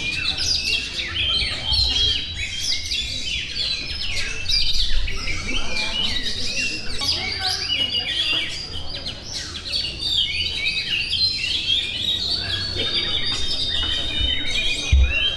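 Several caged songbirds singing at once in competition: a dense, overlapping stream of rapid chirps, trills and short whistles that never pauses. A dull low knock comes near the end.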